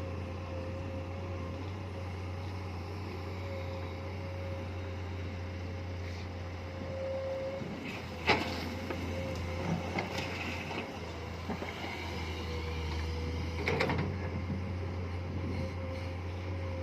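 Komatsu PC210 excavator's diesel engine running steadily with a constant whine over it, and two sharp knocks, about eight and fourteen seconds in.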